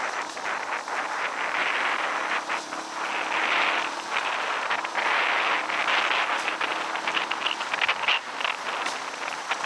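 Wind buffeting the microphone of a moving dual-sport dirt bike, with the bike's engine running faintly and steadily underneath. Short knocks and crackles from the ride over the dirt are scattered through it.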